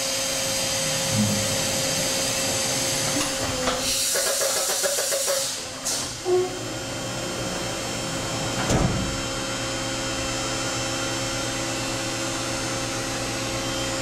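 Okuma & Howa Millac 630H horizontal machining center powered up and running, a steady machine hum with several constant tones. A hiss over the first few seconds grows louder for about a second and a half around four seconds in, and a single knock sounds about nine seconds in.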